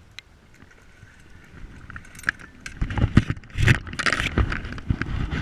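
A hooked salmon splashing at the surface as it is drawn into a landing net, with irregular knocks and clothing rustle from handling the net close to the camera. Quiet at first, it turns loud and busy about two seconds in.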